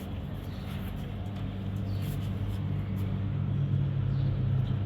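A motor vehicle's engine running close by: a low, steady rumble that grows louder in the second half.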